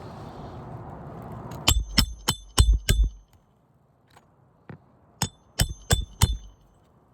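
Hammer striking a steel roof snake to drive roofing nails under a shingle tab: five quick ringing blows, a pause of about two seconds, then four more.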